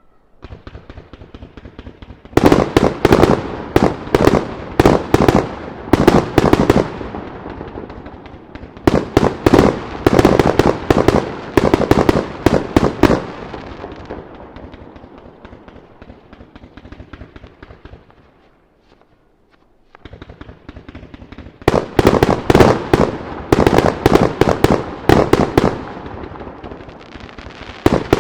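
Aerial firework shells, mostly round-bursting warimono shells, going off in rapid volleys of sharp bangs, each trailing an echo. The bangs come in three dense clusters: from about two seconds in, again around nine seconds, and from about twenty-two seconds. Quieter rapid pops lead into the clusters, with a brief lull shortly before the last one.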